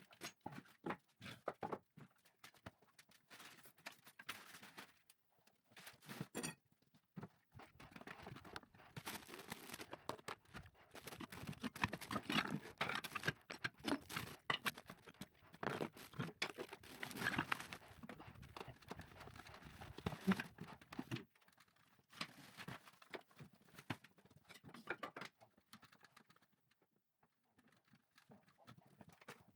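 Irregular knocking, tapping and scraping, with no steady rhythm; it grows busier and louder through the middle, then thins out near the end.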